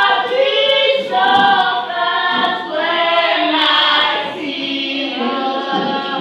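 A group of school students singing together unaccompanied, in held phrases of about a second each with short breaks between them.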